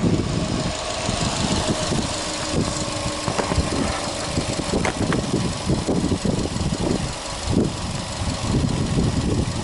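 Subaru Impreza WRX STI's turbocharged flat-four boxer engine idling, heard with the bonnet open, with an uneven pulsing beat.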